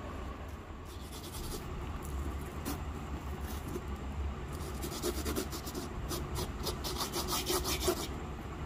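Fingertips rubbing and pressing coloured sand into the sticky backing of a sand-art sheet: scattered scratchy strokes that come thick and fast about two thirds of the way in, over a steady low hum.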